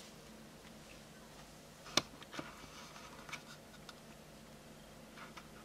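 Faint low hum with scattered light clicks and ticks, and one sharp click about two seconds in.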